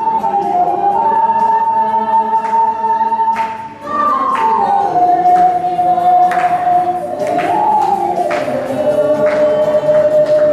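A crowd of voices singing a song together in unison, with ocarinas carrying the melody in long held notes.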